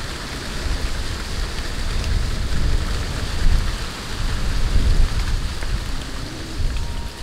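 Cat chewing and licking up raw fish scraps close to the microphone: a dense, irregular wet crackling over a low rumble.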